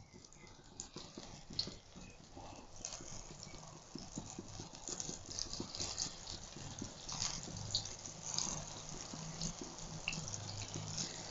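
Hot oil in an iron karahi sizzling and crackling as besan-battered onion rings are dropped in one by one to deep-fry, getting busier over the first few seconds as more rings go in.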